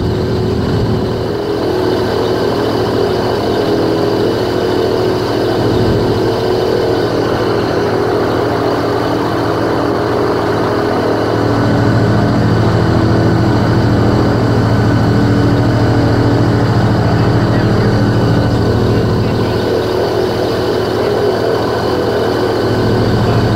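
Airboat engine and air propeller running steadily as the boat cruises, a constant engine drone that grows a little louder about halfway through.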